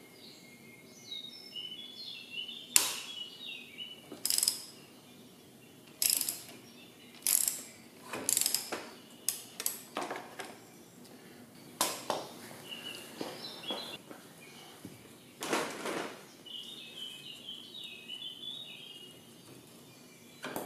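Irregular metallic clicks and short rasps from a socket wrench working on a Yamaha Xmax 300's front fork tube at the clamp, spaced a second or two apart.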